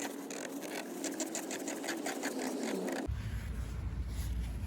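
Quick run of light clicks and scrapes as the plastic oil filter housing cap of a BMW X1 is screwed down by hand on its threads. About three seconds in it stops abruptly and a low steady hum takes over.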